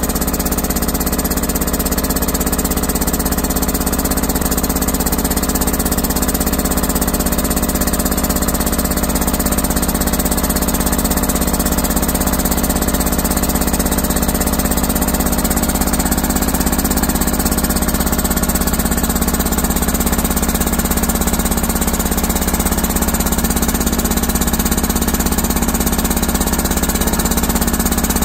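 Pescara free-piston air compressor running steadily with an even, rapid beat.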